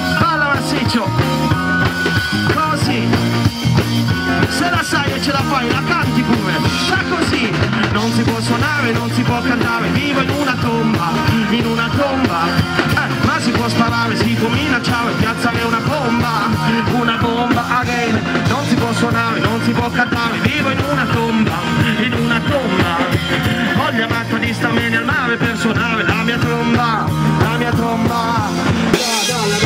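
Roots reggae band music with drums, bass and electric guitar and a voice singing over a steady beat.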